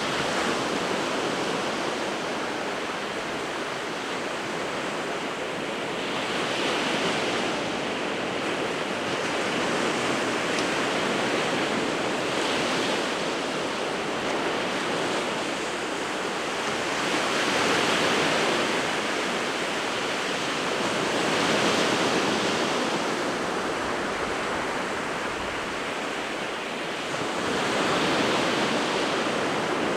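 Winter Sea of Japan surf breaking continuously on the shore, a steady wash that swells with each incoming set every four to six seconds.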